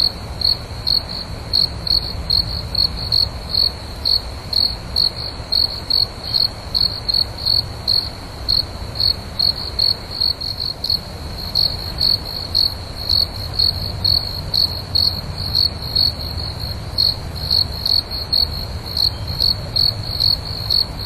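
A night insect chirping in a steady rhythm, about two to three short high-pitched chirps a second, pausing briefly about halfway through, over a faint low rumble.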